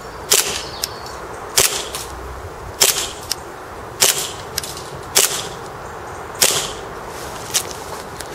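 Tokyo Marui plastic-frame 1911 gas blowback airsoft pistol firing propane-powered single shots at a steady pace, about seven sharp cracks a little over a second apart. Each crack is followed by a fainter click.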